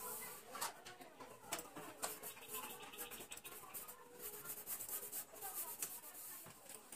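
Faint rubbing with scattered light clicks and taps as a ceiling fan's motor housing and blades are wiped by hand with a cloth.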